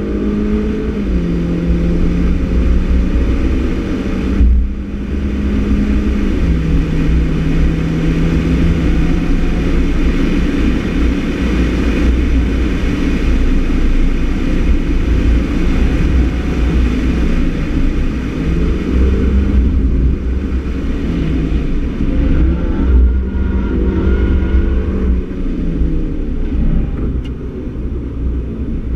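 Mini Cooper S 1.6-litre turbocharged four-cylinder with an aftermarket Works exhaust, heard from inside the cabin, running hard at track speed. The engine note holds steady, then changes pitch at gear changes several times, rising and falling in the later part, over heavy wind and tyre noise.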